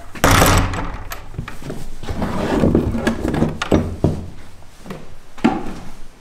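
Footsteps and shuffling on old wooden floorboards, with scattered knocks and thumps of wood. The loudest is a sharp thump about a quarter second in.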